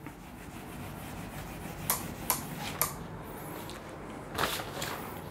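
Whiteboard duster wiping marker off a whiteboard: a steady rubbing hiss, with three short knocks about two to three seconds in and another brief, louder rub near the end.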